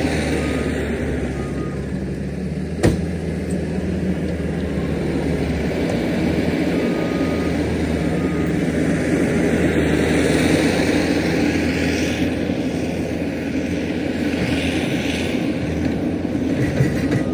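Heavy earthmoving machine's engine running steadily, with a single sharp knock about three seconds in.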